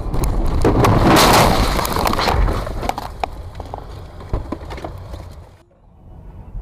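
A vehicle crash: a loud, noisy crunch of about two seconds full of cracks and knocks, followed by scattered clicks and rattles that die away, then the sound cuts off abruptly near the end.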